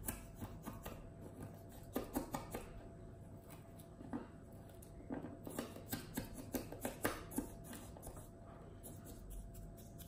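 A thin stick stirring a gritty sugar, cinnamon and olive-oil lip scrub in a small jar: clusters of quick scraping clicks against the jar, with short pauses between them.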